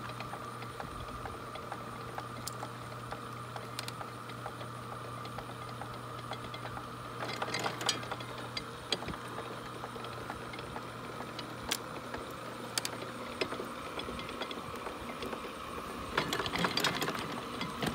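Antique Deering grain reaper's rake and reel mechanism running, driven by a small electric motor: a steady hum under a constant light clatter of gears, chain and linkages. Louder clanking bursts come about eight seconds in and again near the end as the rakes come round, with the rake trip set to sweep the table every other time.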